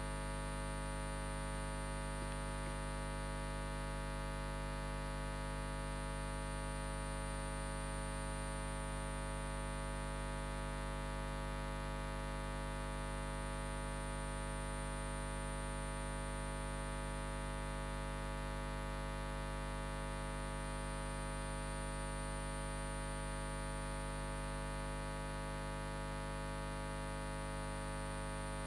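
Steady electrical mains hum and buzz in the sound system, a low drone with many even overtones and a faint thin high whine above it, unchanging throughout.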